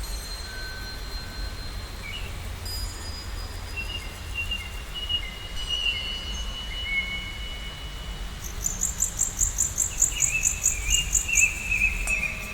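Bird-like whistled notes and short glides over a low steady rumble, then a fast run of high chirps, about four a second, for the last few seconds, the loudest part.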